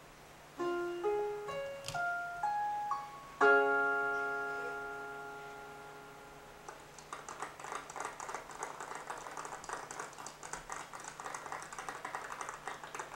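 A piano plays a short run of single notes that climb in pitch, then a loud chord that rings and dies away over about three seconds. From about seven seconds in there is a dense, irregular patter of quick taps.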